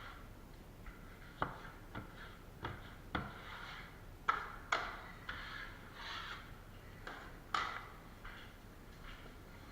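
Drywall taping knife working setting compound into wallboard joints: an irregular string of sharp metal clacks, about one every half second to a second, with short scraping strokes between them.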